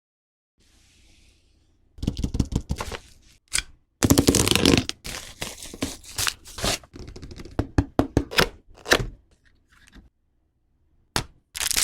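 Keyboard packaging being opened and handled: irregular scraping, knocks and clicks of cardboard and plastic, starting about two seconds in and stopping shortly before the end, with a couple of brief scrapes at the very end.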